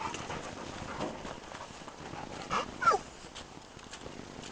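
Dog giving two short, high whines that fall in pitch, close together about two and a half seconds in, while excitedly jumping up.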